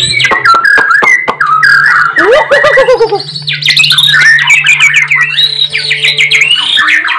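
White-rumped shama (murai batu) singing a loud, fast, varied song of whistled phrases, quick rising and falling slurs and sharp clicking notes.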